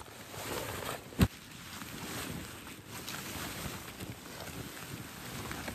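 Rustling and flapping of the nylon shell of an insulated pop-up ice fishing tent as it is pulled from its bag and unfolded, with one sharp knock about a second in.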